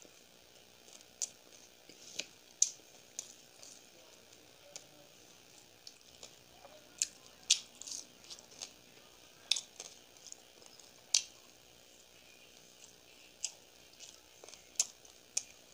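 A person eating gol pitha, fried sweet dough balls, by hand close to the microphone: about fifteen sharp, irregular mouth smacks and chewing clicks.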